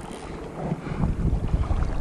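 Wind buffeting the microphone over the rush of river water, the low rumble growing louder about a second in.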